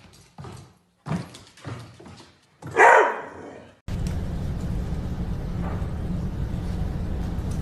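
A dog barking in short bursts, with one loud bark about three seconds in. About four seconds in the sound cuts abruptly to a steady low noise.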